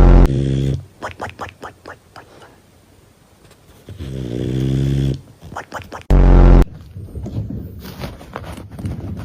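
A dog snoring: two short, very loud snorts, one at the start and one about six seconds in, with a longer pitched snore about four seconds in and runs of quick clicks in between.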